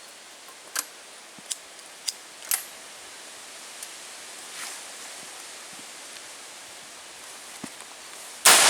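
A few light clicks, then near the end one very loud blast from a Harrington & Richardson 10-gauge shotgun firing a 3½-inch magnum turkey load, its echo dying away slowly.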